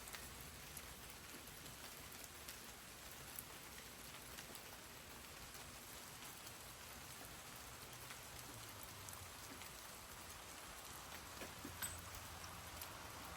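Light, steady rain falling during a thunderstorm, with scattered drops ticking on surfaces.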